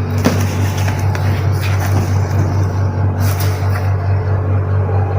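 A steady low droning hum that pulses gently, with a few faint clicks and rustles of handling over it.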